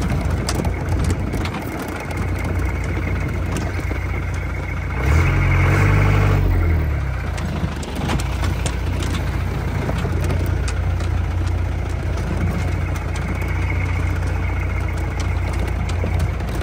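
4x4 off-road vehicle's engine running steadily under a low drone, revving up about five seconds in and easing off about two seconds later. Scattered clicks and knocks sound throughout.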